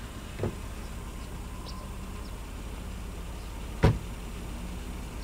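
A car door slams shut with a single solid thud a little under four seconds in, after a softer knock near the start. A steady low hum of the car sits underneath.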